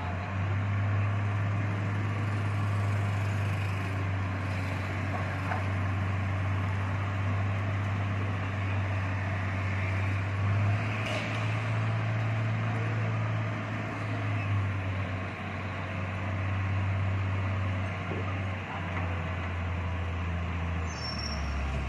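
Crawler pile-driving rig's engine running with a steady low drone while its winch hoists a concrete pile upright. The pitch of the drone dips and rises a few times as the load changes.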